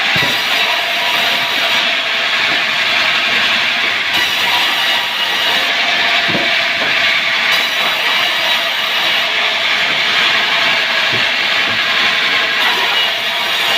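Wood-cutting saw running steadily: a loud, continuous rush of machine noise with faint steady tones, unchanging throughout.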